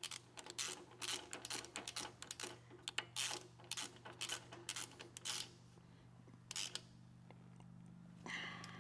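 Quick, irregular clicks and light metal clinks of a ratchet driving an 8 mm Allen-head bolt into the loader boom, stopping about seven seconds in. A low steady hum runs underneath.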